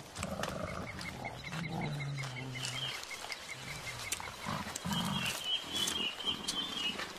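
Mountain gorillas grunting and giving low, drawn-out rumbling calls, several times. A rapid, even high ticking runs behind them in the first few seconds, and a high twittering in the second half.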